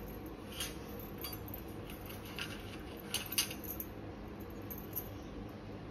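A few light metallic clicks and clinks of a frying pan moving on a gas hob's metal grate as it is handled, over a steady low hum.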